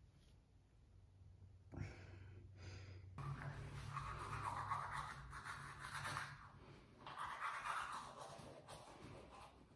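Toothbrush scrubbing against teeth in bouts, starting about three seconds in, over a faint steady low hum; before that only faint room noise.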